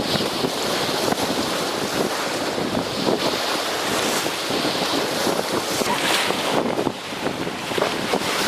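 Strong wind buffeting the microphone, over rough, splashing river water.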